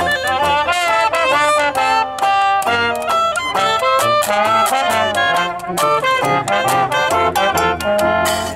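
Jazz played by a brass band, a trumpet carrying a busy melody over lower horns and a steady beat.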